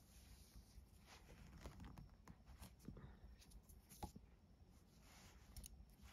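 Near silence, with faint rustles and a few soft ticks as nylon paracord is pulled through and worked by hand into a square knot.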